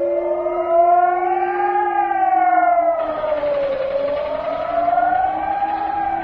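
Civil defence siren wailing, its pitch rising and falling slowly about every four seconds, over a steady lower tone.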